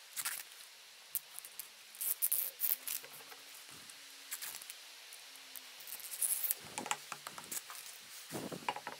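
Crinkling and rustling of self-adhesive abrasive paper sheets being peeled, laid on a glass plate and smoothed down by hand, in short scattered bursts. There are a couple of soft knocks near the end.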